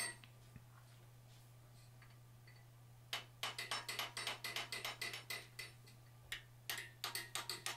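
Rapid light hammer taps on a handheld top tool set against hot forging steel, about five strikes a second. The taps begin about three seconds in, break off briefly, then resume near the end.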